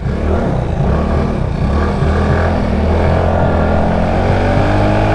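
Yamaha Mio Soulty scooter's small single-cylinder engine pulling away under throttle, its note coming in suddenly at the start and then rising steadily in pitch as it accelerates.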